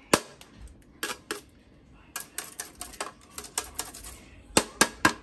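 Metal box grater clicking and tapping against a stainless steel bowl while sweet cassava is grated. A few single sharp taps, a quick run of lighter clicks in the middle, then three more taps near the end.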